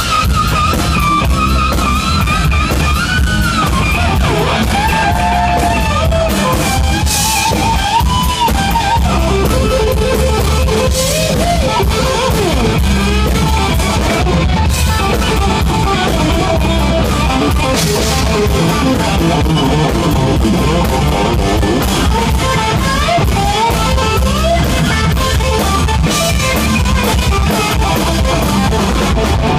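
Live rock band: a Flying V electric guitar through Marshall amps plays a lead line of bending, sliding notes over drums and bass.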